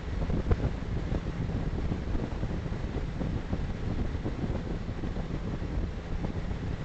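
Steady low road rumble and wind noise of a car cruising at motorway speed, about 113 km/h, heard from inside the cabin.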